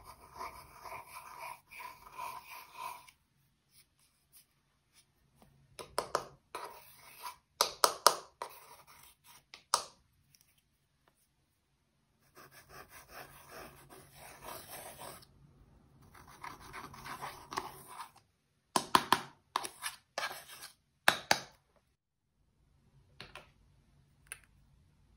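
A pointed tool scratches pressed eyeshadow out of palette pans in several bouts of dry scraping. Between bouts there are groups of sharp clicks and taps, which are the loudest sounds.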